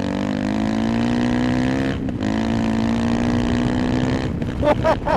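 Honda CRF300L's single-cylinder engine, breathing through a loud Dominator aftermarket exhaust with an ECU and airbox tune, accelerating hard. The pitch climbs, breaks briefly at an upshift about two seconds in, then climbs again through the next gear. Near the end a man's voice exclaims over it.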